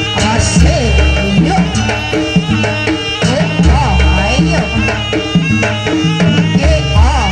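Javanese gamelan music with kendang drumming, played live for a Buto dance. Ringing metal-keyed tones are held over deep drum strokes that come in clusters about every three seconds, and sliding pitched notes run above them.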